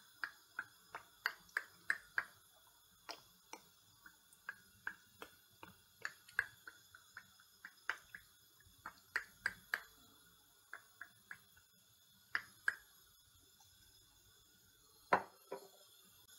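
Cooking oil poured in a thin stream from a bottle over raw sliced onions in a pan: faint, irregular soft clicks, two or three a second, with a louder click near the end.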